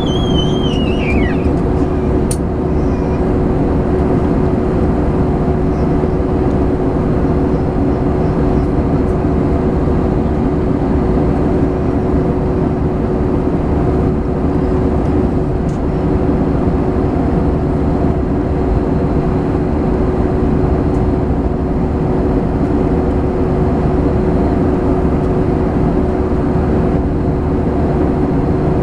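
Steady airliner cabin noise in cruise flight, the even rush of jet engines and airflow with a steady hum throughout. A brief high cry that rises and then falls comes right at the start.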